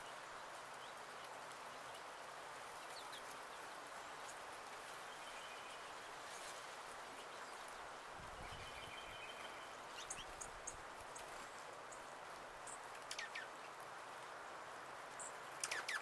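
Small songbirds giving short, high chirps and brief calls over a steady outdoor hiss, with a quick cluster of louder chirps near the end.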